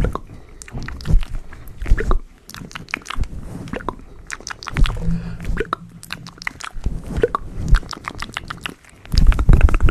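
Gloved hands scratching and rubbing a fluffy microphone windscreen up close, making a crackly, crunchy ASMR texture of many small clicks. The rubbing grows louder and faster near the end.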